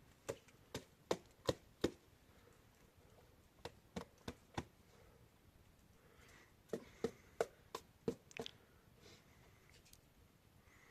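Three runs of short, sharp knocks, each about a third of a second apart: five at the start, four about four seconds in, and six more around seven to eight and a half seconds.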